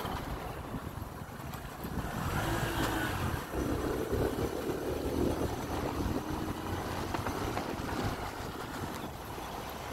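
Motorbike engine running while riding along a dirt track, getting louder about two seconds in and holding a steady drone.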